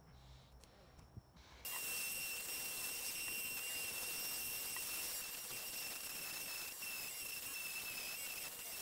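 Dremel 4300 rotary tool on a flex shaft, fitted with a small sanding disc, switching on about two seconds in and running at a steady high-pitched whine while sanding wood.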